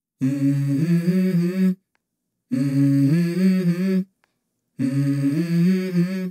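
Hummed vocal melody in three short phrases, each stepping up in pitch partway through, with brief silences between them.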